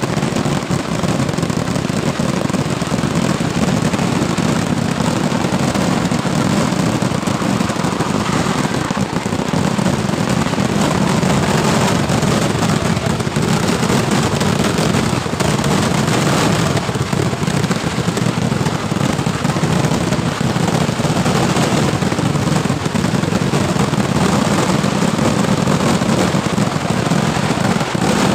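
A massed fireworks barrage: countless firecrackers and shells bursting in rapid succession, so close together that the bangs merge into one continuous, unbroken crackle.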